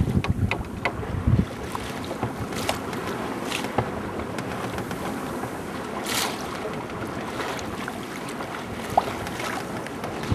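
Wind buffeting the microphone and water washing along a sailboat's hull while under way, with scattered knocks, the loudest low ones in the first second and a half.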